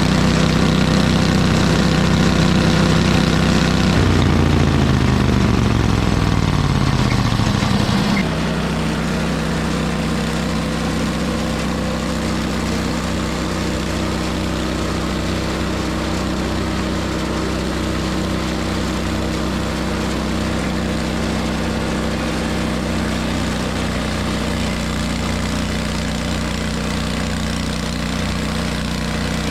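Engines running steadily; about four seconds in, one machine's pitch falls over about four seconds and stops as it winds down, while another engine keeps idling.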